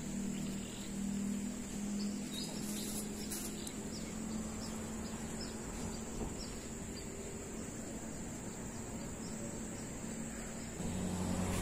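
Insects droning steadily on one high note, with a few short chirps a few seconds in, over a low steady hum.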